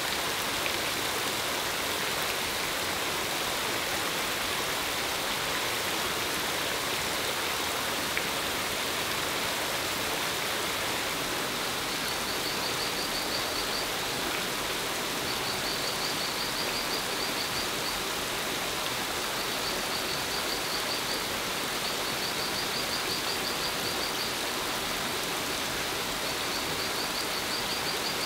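Artificial rain from a perforated bamboo pipe: a curtain of water drops falling onto rocks and shallow stream water, a steady splashing hiss. From about halfway, a faint, high, rapid trill repeats in short bouts over it.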